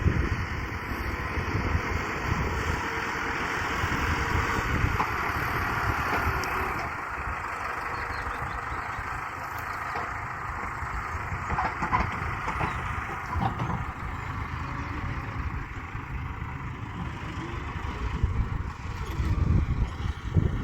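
Quad bike engine running steadily, with gusty wind rumble on the microphone.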